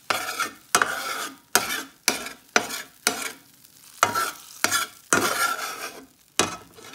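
Metal spatula scraping across the bottom of a frying pan in about ten quick strokes, lifting crisped fat and cooked-on bits, with hot fat sizzling.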